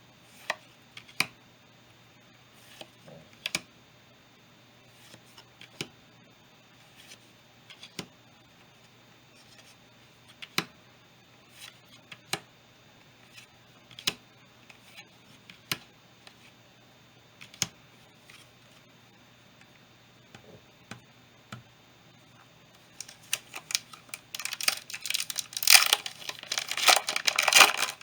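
Yu-Gi-Oh cards handled one at a time, with a sharp snap every second or two as each card is flicked or set down. Near the end a foil booster pack crinkles and tears open, the loudest sound.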